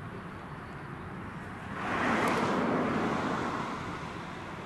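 A road vehicle passing at speed on the highway, its tyre and wind noise swelling about two seconds in and fading away, over the steady low rumble of a diesel locomotive.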